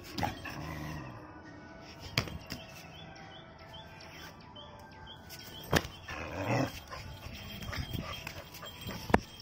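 Indian pariah dog at play giving one short, gruff bark about six and a half seconds in, with a few sharp clicks scattered through.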